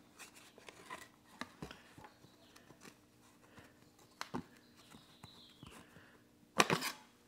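Light taps, clicks and paper rustles as a cardboard template and a steel plate are handled and pressed against a steel Jeep frame rail, over a faint steady hum. A louder short clatter comes a little before the end.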